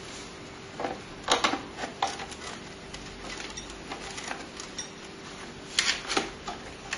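Clicks and light clatter of hard plastic and metal computer parts being handled while connecting cables inside a PC, in two short clusters about a second in and near the end.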